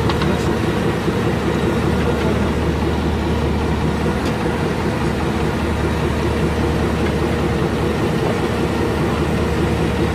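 Large diesel engine idling steadily, an even low drone.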